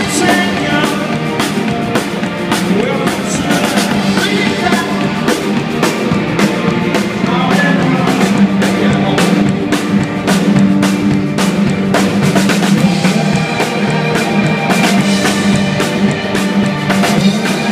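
Rock band playing live: electric guitars and bass over a drum kit keeping a steady beat, heard loud from the side of the stage.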